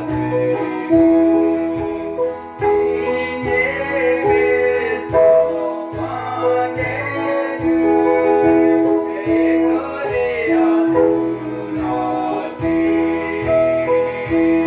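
Yamaha electronic keyboard and electric guitar playing a slow song together, with a bass line and held chords, and a man singing over them.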